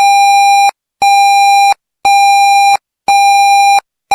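Electronic alert beeps of an Emergency Alert System broadcast: a loud, buzzy single-pitched tone pulsing on and off about once a second. Four identical beeps sound, and a fifth starts near the end.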